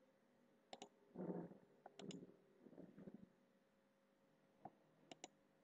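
Quiet computer mouse clicks: about six short, sharp clicks spread out, two of them coming as quick pairs.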